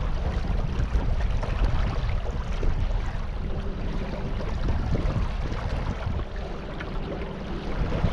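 Wind buffeting the microphone and water splashing around a small boat on the river, with irregular short splashes throughout.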